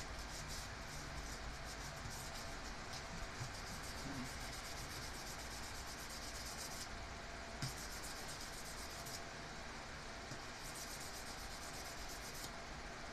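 Hand sanding a thin metal horn-button contact on 400-grit sandpaper, cleaning it: quick back-and-forth rubbing strokes that stop briefly about seven seconds in, again around nine seconds, and near the end.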